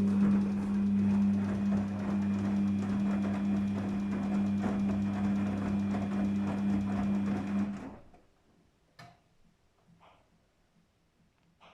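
Daewoo DWD-FT1013 washing machine humming steadily with an even low drone at the start of a cotton 40°C cycle, cutting off abruptly about eight seconds in; a few faint clicks follow.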